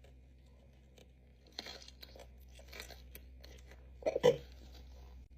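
Close-up chewing and crunching of a pickle stuffed with Takis chips and candy, as short irregular crackles. About four seconds in comes a brief, louder mouth-closed vocal noise.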